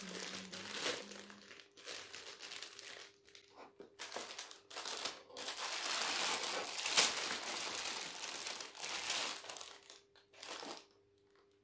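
Plastic packaging crinkling and rustling as it is handled and unwrapped, in irregular bursts, busiest in the middle and stopping near the end.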